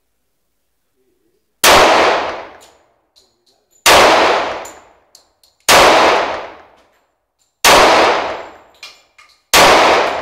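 Five shots from a 1943 Colt 1911 A1 .45 pistol, fired one at a time about two seconds apart. Each shot is loud and dies away over about a second in the range booth's echo.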